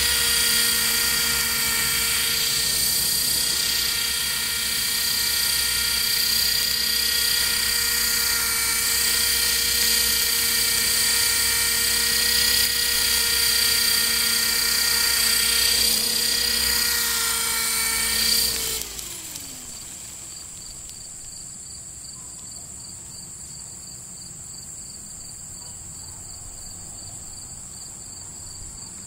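Radio-controlled model helicopter hovering, its motor and rotor giving a loud, steady, high-pitched whine. About two-thirds of the way through, the pitch glides down and the sound drops sharply as the helicopter sets down and the rotor spins down. A faint high whine lingers afterward.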